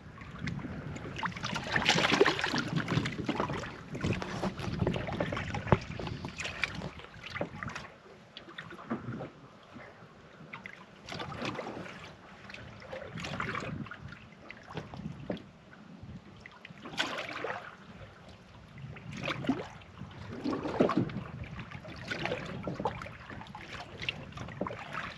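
Water slapping and lapping against the hull of a small fishing boat in irregular surges, with wind on the microphone.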